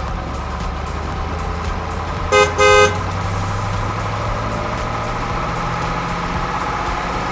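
A vehicle engine running steadily, with two short horn toots in quick succession about two and a half seconds in.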